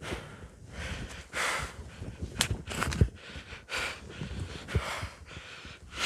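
A man breathing hard in short, strained bursts as he wrenches at a splintered tree stump, with two sharp cracks of the wood a little before the middle.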